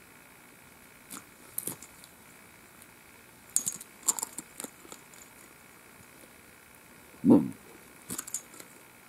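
Scattered light metallic clinks and rattles from a steel catch pole and trap chain as a coyote held in a wolf trap is worked with the pole, with one louder, short low thump about seven seconds in.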